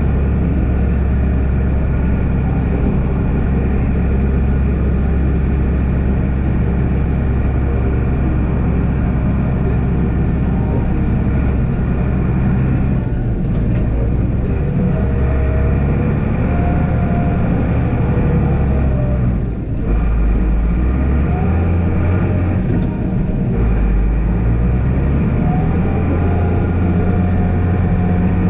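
Mercedes-Benz Unimog U1400 diesel engine running under load while it drives a front snowplow blade through snow, with a steady noisy hiss of the blade pushing snow. The engine note changes pitch several times, with brief lulls about a third and two-thirds of the way through.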